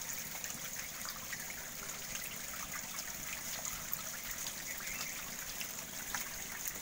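Steady water trickling and splashing with many small splashes and clicks, from a tank crowded with native magur (walking catfish) churning in shallow water at harvest.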